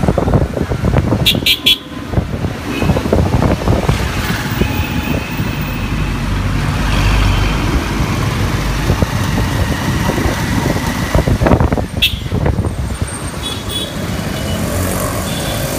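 Busy city traffic heard from a moving motorbike: a steady engine and wind rumble, with a quick triple horn toot about a second and a half in and more short horn toots near the end.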